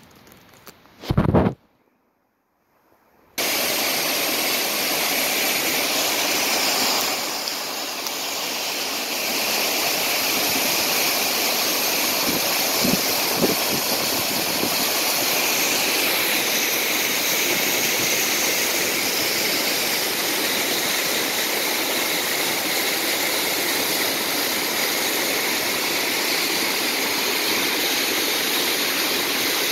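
A loud knock about a second in, a moment of silence, then a waterfall's steady rushing starts abruptly and carries on, with a couple of faint knocks near the middle.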